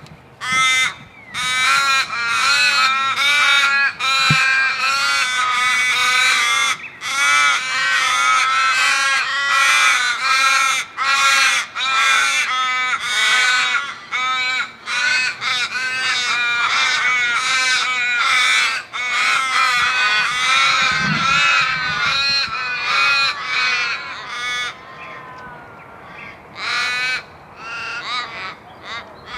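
A flock of crows cawing, many harsh calls overlapping almost without a break, thinning to scattered caws in the last few seconds.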